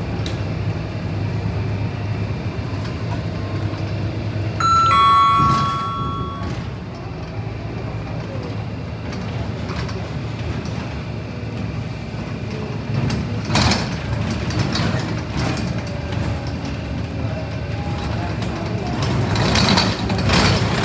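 Scania K270UB city bus running steadily, heard from inside its cabin as it drives. About five seconds in, a two-note electronic ding-dong chime sounds once, a higher tone falling to a lower one. Louder rushes of noise come about two-thirds of the way through and again near the end.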